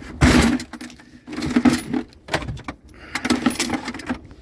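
Loose metal nuts and bolts clinking and rustling in a bag as it is rummaged through, in three short bouts.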